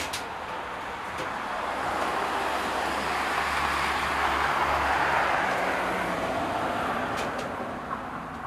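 A passing vehicle: a steady rushing noise that swells over the first couple of seconds, peaks past the middle and fades toward the end. A few light clicks come near the start and about seven seconds in.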